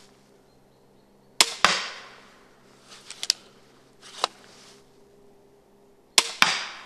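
Homemade wooden pump-action repeating crossbow pistol firing twice, about five seconds apart. Each shot is a sharp snap of the string, followed about a quarter second later by a second crack as the bolt hits the target. Between the shots come a few clicks and clacks as the pump action is worked to cock it and load the next bolt.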